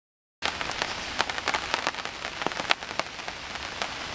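Rain falling, with many individual raindrops heard as sharp taps over a steady patter. It cuts in abruptly from silence about half a second in.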